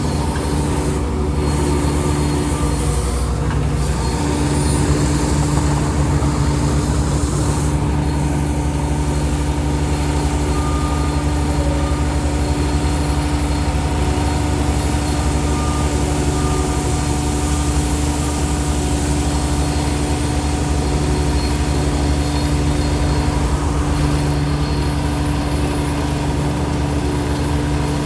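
Road roller's diesel engine running steadily at a constant pitch, with a heavy low rumble.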